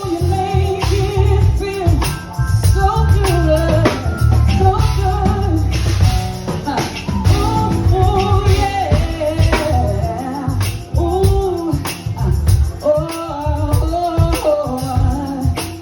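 Live R&B band playing, with drums, bass guitar and keyboards under a woman's sung lead vocal.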